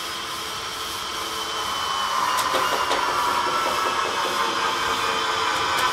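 Broom bristles scrubbing a wet corrugated metal wall sheet: a continuous scraping rasp that grows louder about two seconds in, with a few sharp clicks as the broom knocks the ridges.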